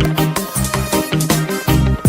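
Instrumental hip-hop beat with a heavy bass and regular drum hits, no rapping.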